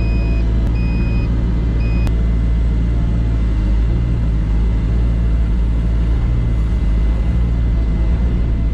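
Diesel engine of a Cat 305 mini excavator running steadily. Its travel alarm beeps at an even pace, about one beep every two-thirds of a second, and stops about two seconds in.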